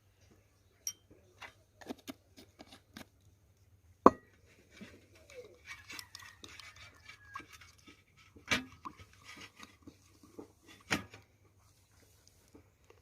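Utensils clinking and knocking against dishes as spices are added and mixed. There are scattered light clicks, with sharper knocks about four seconds in and again around eight and a half and eleven seconds.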